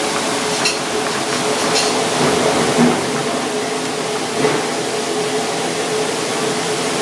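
Fish fillet simmering in broth in a frying pan over a gas burner: a steady hiss with a low hum under it and a few light pops.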